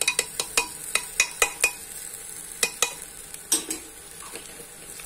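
Wooden spatula stirring basmati rice, potato pieces and spices as they roast in ghee in a steel pot. It knocks and scrapes against the pot in a quick run of clicks during the first two seconds, then a few more, over a steady faint sizzle.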